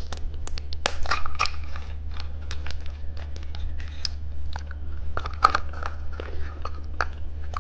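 Plastic candy wrapper crinkling and tearing as a hamburger candy is unwrapped, a run of irregular sharp crackles and clicks.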